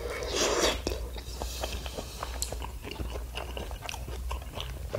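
A man chewing a mouthful of fish cake in tteokbokki sauce close to the microphone, with many small wet clicks. The chewing is loudest about half a second in.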